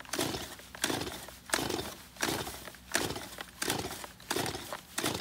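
Two-stroke Stihl chainsaw being pull-started over and over, about eight quick pulls of the recoil starter cord at a steady rhythm. The engine turns over without catching: a cold saw that has sat all winter.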